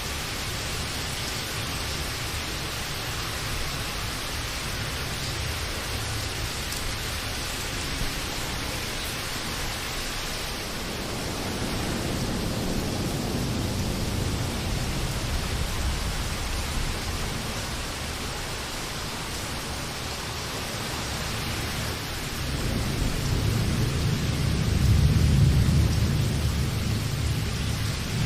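Steady rain hissing, with low rolls of thunder: one rumble swells about halfway through and a louder one builds near the end.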